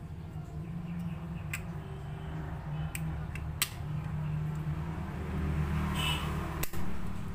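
Small metal pump parts clicking and tapping as they are handled and fitted, a few separate sharp clicks spread through, over a steady low hum.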